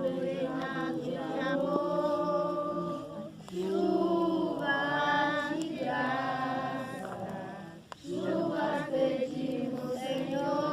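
A group of voices singing a worship song together in long held phrases, with brief pauses between lines about three and a half and eight seconds in.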